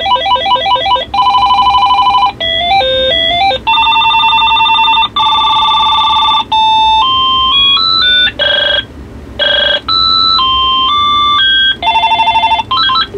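AT&T EL51359 DECT 6.0 cordless handset playing its built-in ringer tones one after another. The electronic beeping trills, chords and short stepped melodies change every second or so.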